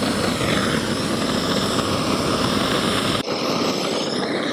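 Handheld disposable gas torch burning with a steady rushing hiss, its flame played into a bowl of leftover two-stroke oil residue. About three seconds in the low rumble cuts out abruptly, leaving a thinner hiss.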